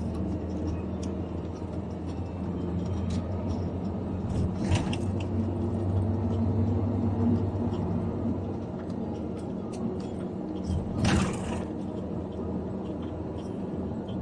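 Steady low rumble and hum of a vehicle in motion. Two brief louder rushing noises come about 5 and 11 seconds in, the second the loudest.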